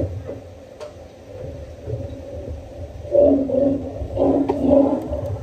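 Amur tigers fighting: low growling rumbles, then loud snarling roars from about three seconds in as one tiger rears up and swipes at the other.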